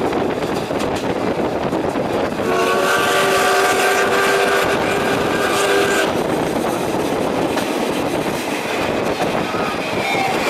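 Steam whistle of the C61 20 steam locomotive blowing one long chord-like blast of about three and a half seconds, heard through an open coach window. Beneath it the coaches run with a steady rumble and the clatter of rail joints on jointed (not long-welded) track.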